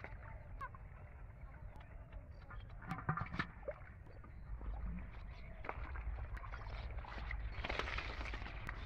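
Hands splashing and sloshing in shallow muddy pond water while groping for fish, with a few louder splashes about three seconds in. Near the end there is a noisier patch of splashing and rustling as a hand works in among water hyacinth.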